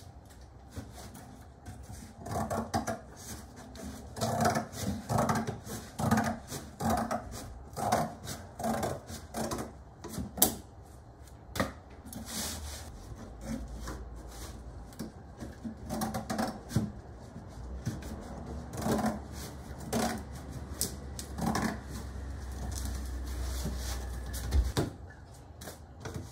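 Scissors cutting through a cardboard box: a series of short snips and scrapes in clusters, with pauses between them.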